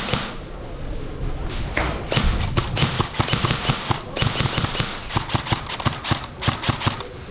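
A run of sharp knocks and thuds, several a second and irregular, starting about two seconds in.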